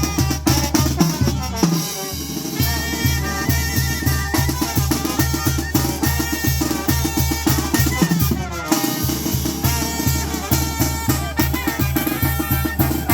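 Mexican tamborazo band playing: a steady pounding tambora bass drum and snare under wind and brass melody lines. The bass drum drops out briefly twice, about two seconds in and about eight and a half seconds in.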